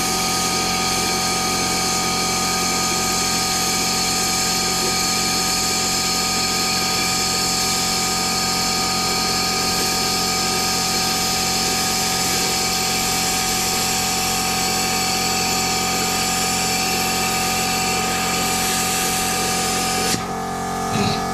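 Plasma cutter cutting through the steel shell of a fridge compressor: a steady hiss and buzz with steady humming tones beneath. About twenty seconds in the hiss cuts out, while the hum carries on.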